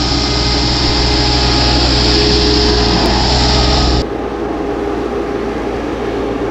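Sherp N 1200 amphibious UTV's Doosan inline-three diesel engine running steadily under load. About four seconds in the sound changes abruptly to the vehicle driving through water, splashing and churning around its tyres, with the engine lower beneath it.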